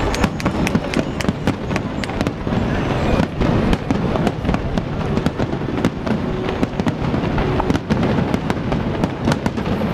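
Aerial firework shells bursting in quick succession: a continuous barrage of overlapping bangs and sharp cracks over a steady low rumble.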